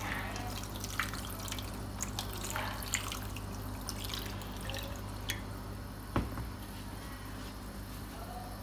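Ice water poured from a glass bottle into a plastic tub over a freshly boiled chicken, splashing and trickling, with a few small clicks. A sharper knock about six seconds in.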